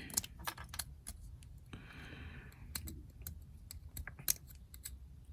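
Sharp knife blade shaving and chipping hardened super glue and baking soda filler off a metal part: faint, irregular small clicks and ticks, with a brief scrape about two seconds in.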